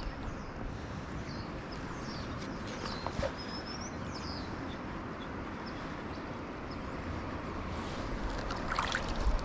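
Steady rush of a flowing river, with scattered short, high bird chirps over it. A low rumble rises near the end.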